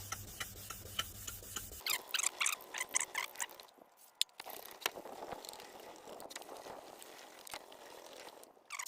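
Hand wet-sanding a plastic car headlight lens with 500-grit wet-and-dry sandpaper: rhythmic back-and-forth rubbing strokes, quicker for a moment about two seconds in, then a softer steady scrubbing. The coarse paper is cutting off the headlight's old clear coat.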